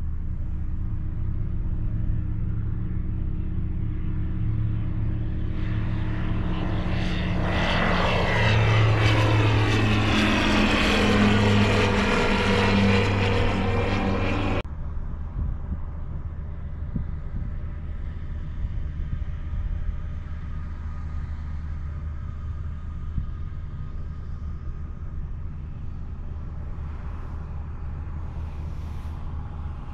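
Light single-engine propeller airplane passing low overhead: the engine-and-propeller drone swells and falls in pitch as it goes by, then cuts off abruptly about fifteen seconds in. After the cut, a fainter steady drone continues.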